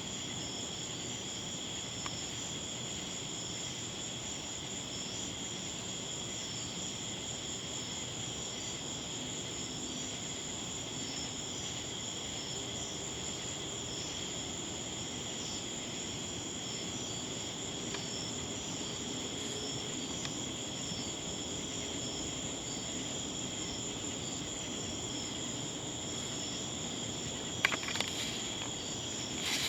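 Steady high-pitched insect chorus in two high bands, with a few sharp clicks near the end; no thunder is heard.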